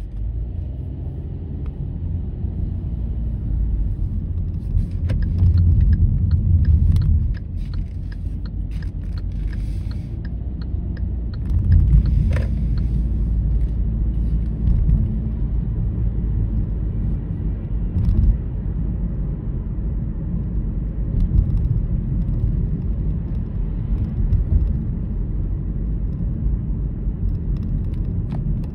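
Car driving on city streets: a steady low rumble of engine and road noise, swelling slightly a few times, with occasional faint clicks.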